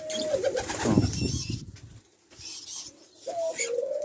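Caged doves cooing. A long, steady coo trails off at the start, a brief rustling flurry follows about a second in, and another long coo begins near the end.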